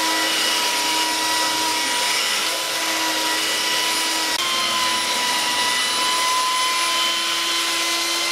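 Handheld electric belt sander running steadily while it is pushed along a glued-up wooden plank deck to sand it flat. A steady motor whine sits over the hiss of the belt on the wood.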